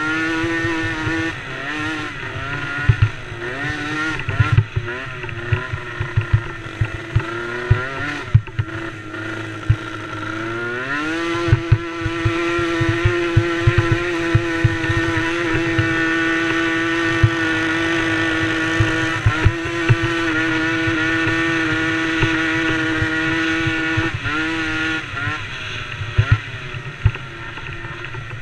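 Engine of a DRR DRX90 youth racing ATV running at changing revs, then climbing about eleven seconds in and holding a steady high pitch for some twelve seconds before easing off near the end, with frequent short low thumps throughout.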